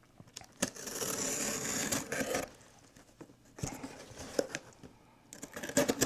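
Cardboard box and packaging being handled: a long rustling, sliding scrape, a shorter one a little later, and a quick run of clicks and taps near the end.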